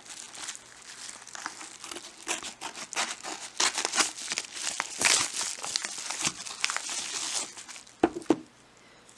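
A mailing envelope being torn open and crinkled as a book is pulled out of it, a dense run of irregular crackling and rustling. Near the end the crinkling stops and there are two short knocks as the book is handled.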